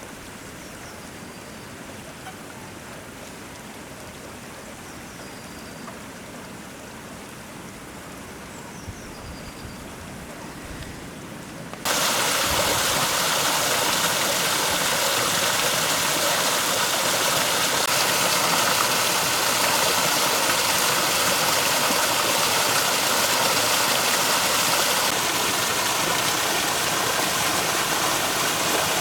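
Water pouring over a small waterfall, a steady rushing hiss that jumps suddenly much louder about twelve seconds in. A few faint high chirps sound in the quieter first part.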